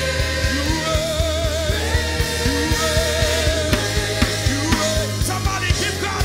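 Live church worship music: a band with drum kit and bass guitar keeping a steady beat, under a singer holding long notes with vibrato.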